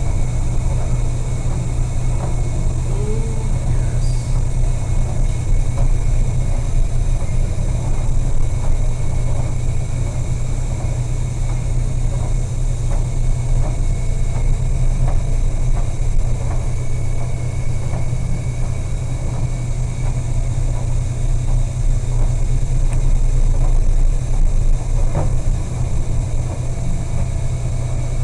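Steady low rumble on board a cargo ship in a storm, like engine drone, with occasional faint knocks.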